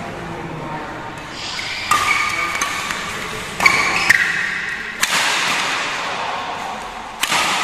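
Badminton rackets striking a shuttlecock during a doubles rally: about five sharp, irregularly spaced cracks, two of them in quick succession.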